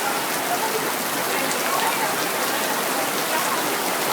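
Steady heavy rain falling and pattering on surfaces during a thunderstorm.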